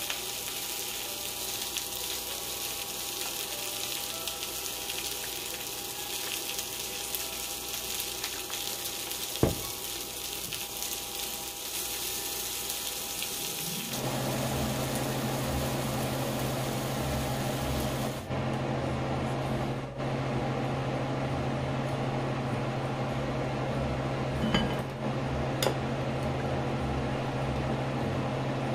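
Food sizzling and frying in butter and oil in a frying pan, a steady hiss for about the first half. It cuts off abruptly and gives way to a steady low hum. A metal spoon stirs sauce in a ceramic bowl, with a few light clinks against the bowl near the end.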